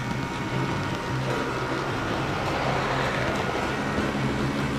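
HO-scale model train running on its track, heard from a camera riding on it: a steady electric motor hum with the rattle of wheels on rail, growing louder about three seconds in as a second model train runs alongside.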